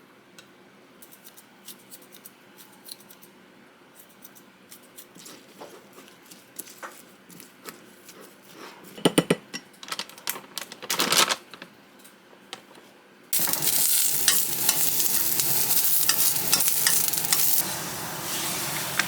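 Kitchen utensils clinking and stirring in a pan, with a louder clatter about halfway through. Then loud frying sizzle starts suddenly and keeps on.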